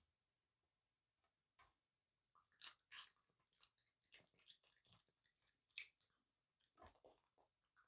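A raccoon chewing grapes: faint, irregular wet chewing and crunching sounds, a few small clicks and smacks a second.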